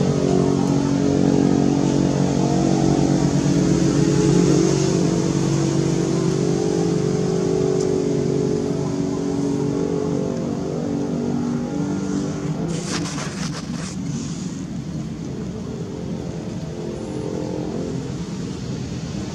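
Motor vehicle engine running close by, a steady hum that fades through the first half, with a short hiss about thirteen seconds in.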